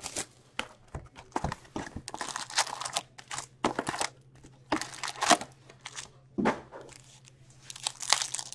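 Plastic shrink wrap being torn off an Upper Deck Series One hockey card box, then foil card packs crinkling as they are pulled from the box and one is torn open. It comes as a run of short, irregular rustles and tears.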